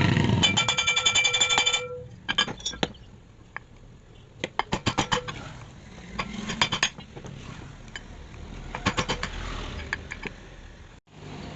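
Ceiling fan being taken apart by hand: short runs of sharp metallic clicks and clinks from screws, tools and the fan's metal housing. Near the start there is a rapid buzzing rattle that stops just under two seconds in.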